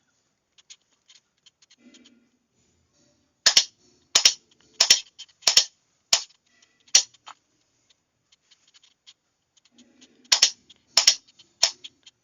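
A Morse key, or a signalling lamp's shutter, clicking sharply as single letters are sent, with no tone. There are two runs of clicks about two-thirds of a second apart, the first about three and a half seconds in and the second after a pause of about three seconds.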